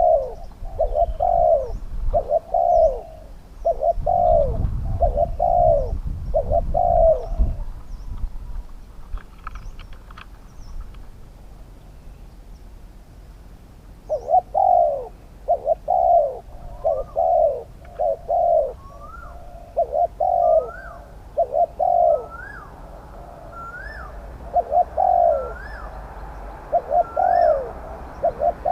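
Spotted doves cooing in repeated phrases. The cooing pauses for several seconds in the middle, then resumes, now with a higher rising-and-falling call over it.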